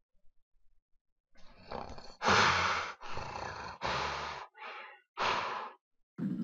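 A person roaring like a monster: five harsh roars in quick succession starting about a second and a half in, the first the loudest.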